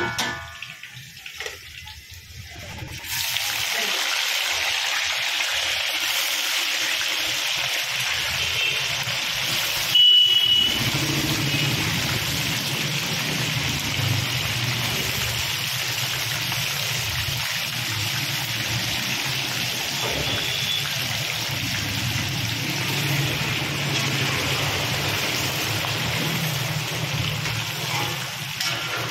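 Chicken pieces deep-frying in hot oil in an iron kadai: a steady, fairly loud sizzle and bubbling that starts about three seconds in. There is a brief louder burst about a third of the way through.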